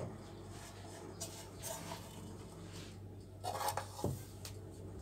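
Shredded kunafa dough being scattered and pressed by hand into a metal baking pan: faint, scattered rustles with light knocks against the pan, the most noticeable a little after three and a half seconds and about four seconds in.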